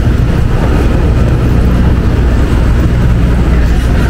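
A large engine running with a steady low drone.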